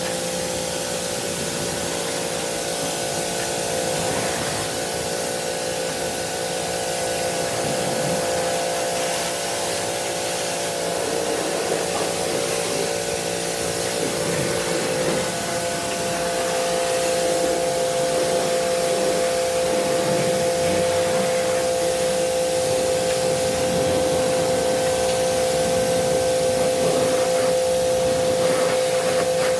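Electric pressure washer running steadily and spraying a hissing jet of water during air-conditioner cleaning. Its motor hum grows a little louder and steadier about halfway through.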